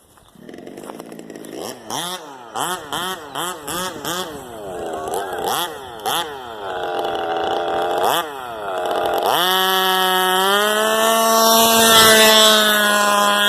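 Small two-stroke weed-eater engine of a gas-powered remote-control car, revved in a quick series of short blips, then held at high, steady revs from about nine seconds in.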